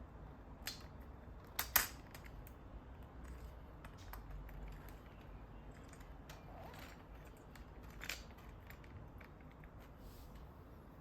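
Small plastic parts of a wireless keyboard being handled during disassembly: scattered sharp clicks and taps, the loudest a little under two seconds in.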